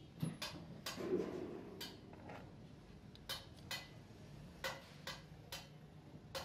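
Sharp metallic clicks and knocks, about ten at irregular intervals, from a metal lathe's three-jaw chuck being turned and tightened onto a wooden handle blank.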